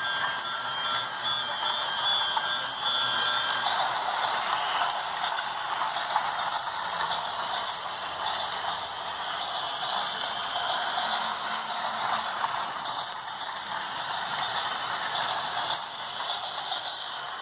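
Battery-operated toy steam train running around its plastic track, its motor and wheels giving a steady rattling clatter with a thin high whine on top. A held tone sounds through the first few seconds.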